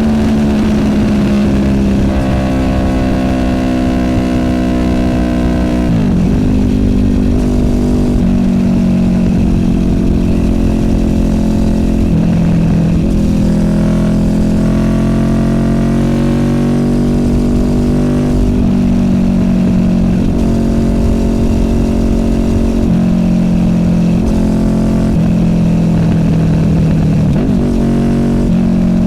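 Honda VFR800F's V4 VTEC engine through an SC Project Conic exhaust, running under way with the engine note rising and falling with throttle. There are sharp drops in revs about six seconds in, again around thirteen seconds and near the end.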